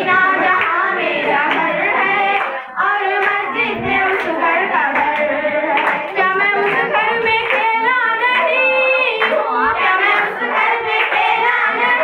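Voices singing a song, with hands clapping along.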